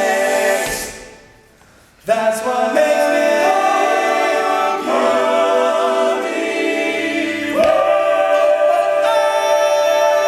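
All-male a cappella group singing sustained chords in close harmony. The singing fades out within the first second, then comes back in abruptly about two seconds in and carries on, the chords shifting every few seconds.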